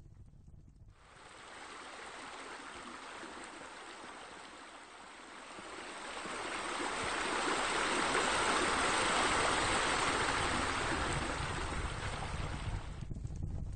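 Steady rush of running water, like a stream or fountain, fading in about a second in, swelling to its loudest past the middle, then cutting off near the end.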